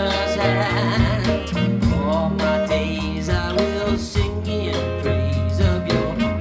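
Live band playing a calypso-style song, a woman singing lead over electric guitar, bass and drums.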